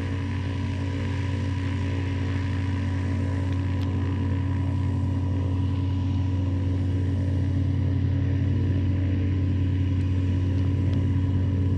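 Just Aircraft Highlander's engine and propeller running at a steady low throttle, a constant drone that grows slowly louder.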